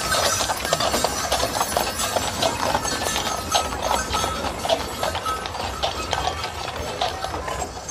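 Horses' hooves clip-clopping as horse-drawn carriages pass, a dense, uneven run of hoof strikes.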